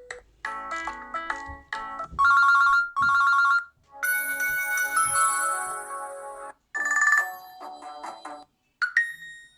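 Nokia 6 stock ringtones previewed one after another on the phone's speaker: a string of short electronic melodies, about six in all, each cut off after a second or two before the next begins.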